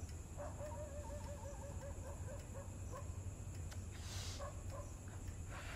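A faint wavering animal call lasting about two and a half seconds, over a low steady hum; a short breathy hiss comes about four seconds in.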